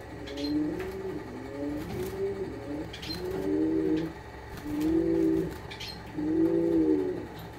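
A dove cooing over and over in short low phrases, the later coos longer and louder. A few faint, short high ticks sound between them.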